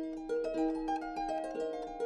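Harp being played: a melody of plucked notes, a few a second, ringing over a lower sustained note.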